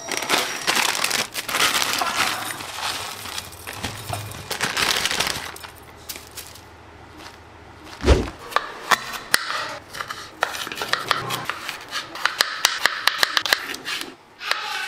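Plastic instant-noodle packets crinkling and rustling as they are handled. About eight seconds in there is a single knock as a knife is drawn from a wooden knife block, followed by a run of quick, sharp clicks as the knife cuts through tomatoes onto a plate.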